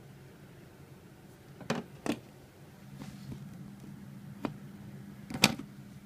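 Four sharp plastic clicks and knocks as the coffee grinder's three-pin mains plug and cord are handled: two close together about two seconds in, a lighter one, then the loudest near the end. A faint steady low hum runs underneath.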